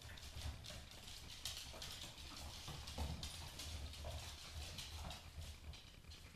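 Claws of Basenji puppies and an adult Basenji clicking and pattering on a laminate floor as they scamper and play, many quick irregular ticks, over a steady low hum.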